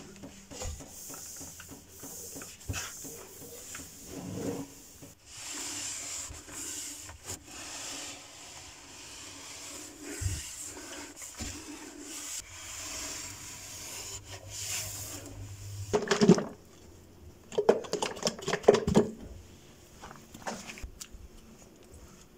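Rubbing and scraping, uneven and handled, with a cluster of louder knocks and clatters in the last third.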